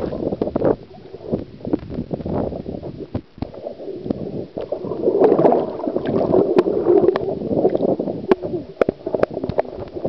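Muffled gurgling and sloshing of water around a camera held underwater, with scattered sharp clicks against the housing.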